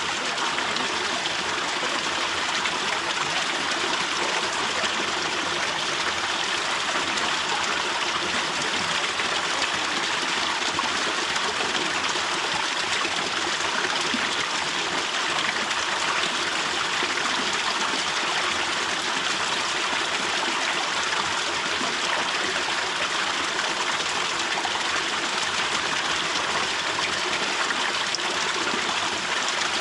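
Water from a thin waterfall dripping and spattering down onto rock and pool, a steady, even rush of falling water.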